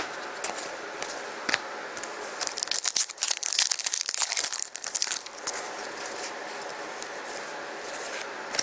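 Wrapper of a 2014-15 Fleer Showcase hockey card pack being torn open and crinkled: a burst of crackly rustling lasting about three seconds in the middle, over a steady background hiss.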